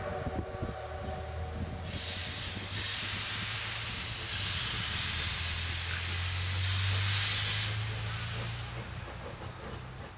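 Steam locomotives, a C57 and C56 double-header, hissing steam while out of sight. There are louder swells of hiss about two, four and a half and seven seconds in, over a low steady hum.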